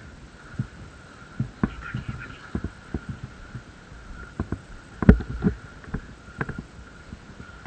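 Irregular series of short, dull thumps and knocks, about a dozen, the loudest about five seconds in, over a faint steady high whine.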